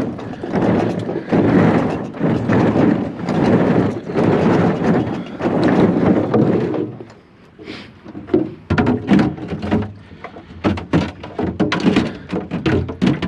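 A doorless refrigerator being dragged and shoved by hand: a long scraping rush for about seven seconds, then a run of sharp thunks and knocks as it is bumped and handled.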